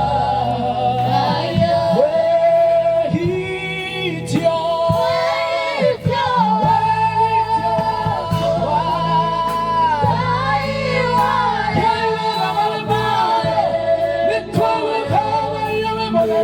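Gospel worship music: voices singing a sustained, wavering melody over a steady low keyboard or bass accompaniment.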